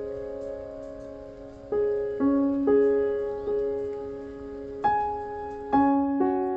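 Background piano music: slow, gentle notes struck a few at a time and left to ring and fade.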